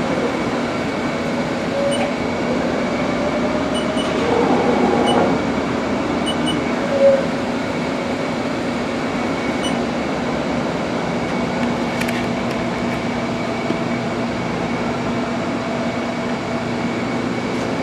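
Haas TM-1 CNC mill running, its Z-axis servo driving the newly replaced ball screw and thrust bearing: a steady mechanical whine over an even hum, with a brief shift in pitch about four to five seconds in.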